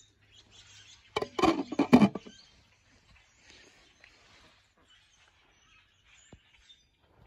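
Ducks quacking: a loud cluster of several quacks about a second in, over faint yard background.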